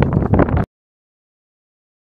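Wind buffeting the microphone, a loud low rumble that cuts off abruptly less than a second in, leaving dead silence.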